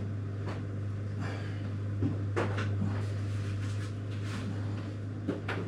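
Kitchen handling sounds: several short knocks and clacks from cupboard doors and items being moved, over a steady low hum.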